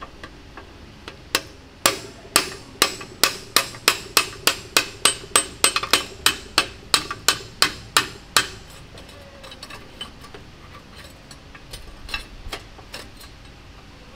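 Hammer striking metal in a steady run of blows, about three a second, as a ball bearing is driven out of a StuG III differential housing; the blows then give way to lighter, scattered taps.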